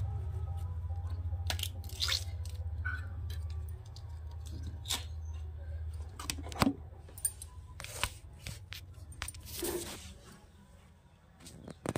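Flat bean (sem) pods being cut and snapped against an upright boti blade: scattered short, crisp snaps and clicks. A low hum underneath fades out about four seconds in.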